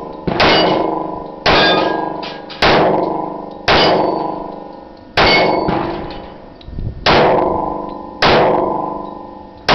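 Glock 21 .45 ACP pistol fired slowly and steadily, about one shot a second with one longer pause, eight shots in all. Each shot is followed by a long metallic ring.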